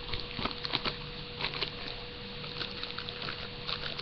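Clear plastic packaging bag crinkling as it is handled, with irregular crackles, over a faint steady electrical hum.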